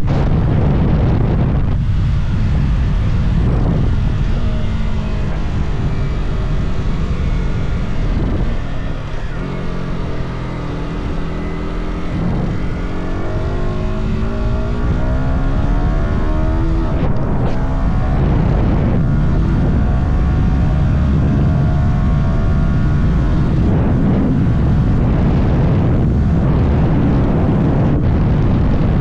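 Yamaha R125's 125cc single-cylinder four-stroke engine through its stock exhaust, heard while riding: the engine note rises again and again as the bike accelerates through the gears, easing off about nine seconds in before pulling up once more, with wind rush underneath.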